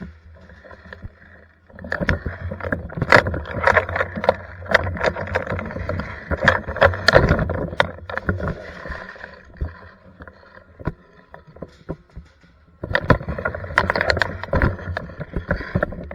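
Airsoft electric gun firing on full auto: a long burst of rapid mechanical clacking lasting several seconds, a pause, then a second, shorter burst near the end.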